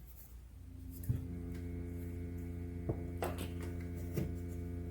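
A steady hum made of many fixed tones comes on about a second in, with a few light clicks over it.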